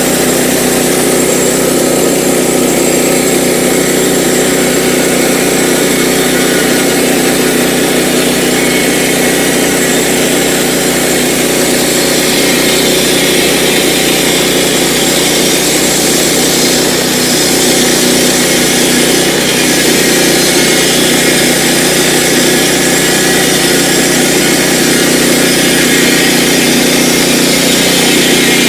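Sawmill engine running steadily at a constant speed, with a brief dip in loudness about halfway through.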